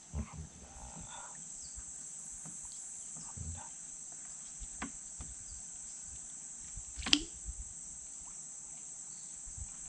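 Steady high-pitched drone of insects in the riverside vegetation, with a few scattered clicks and knocks, the sharpest and loudest about seven seconds in.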